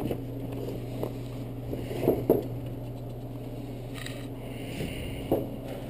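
Light handling sounds, a few short knocks with some rubbing and rustling between them, over a steady low electrical hum.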